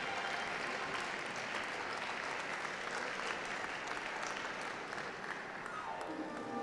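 Audience clapping steadily in applause, with music coming in faintly near the end.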